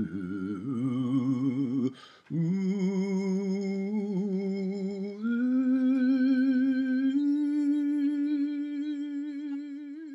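A voice humming long held notes with a wide vibrato, breaking off briefly about two seconds in and then stepping up in pitch twice.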